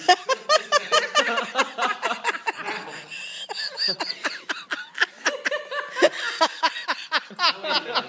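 People laughing, in quick repeated bursts of laughter.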